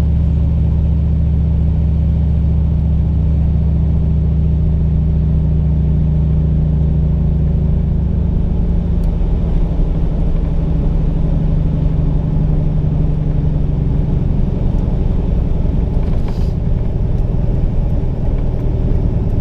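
Turbocharged LQ4 6.0-litre V8 in an LS-swapped Ford Ranger running steadily as the truck is driven. Its note changes about eight seconds in.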